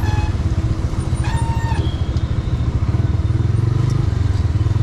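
Steady low rumble of a motorcycle being ridden through traffic, with a short vehicle horn blast about a second and a half in.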